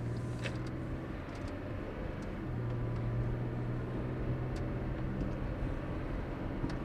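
Car interior driving noise: a steady engine and road drone with a low hum that grows a little louder about two and a half seconds in. A few faint high chirps come from the camera's wifi interference.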